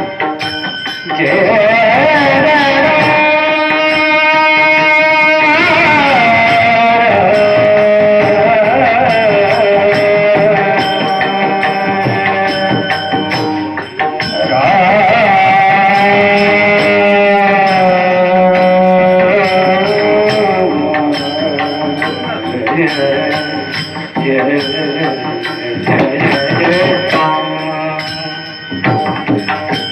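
Marathi devotional bhajan: a voice singing long, ornamented held notes that glide between pitches, accompanied by a pakhawaj drum, with a steady pattern of short high ticks.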